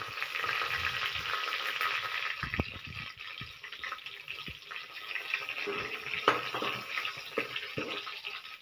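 Chillies sizzling as they fry in hot oil with garlic in a kadai, with a steel spoon stirring and scraping against the pan and clinking a few times.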